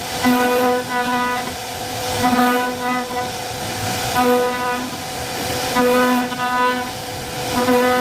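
CNC router carving a wooden door panel: a pitched motor whine comes and goes in short pairs every couple of seconds as the head moves back and forth, over a steady high hiss of cutting.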